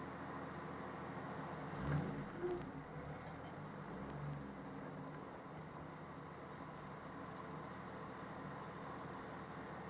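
Turbocharged car engine running steadily with a constant low hum. A low thump comes about two seconds in, and a few short sharp clicks follow near the middle.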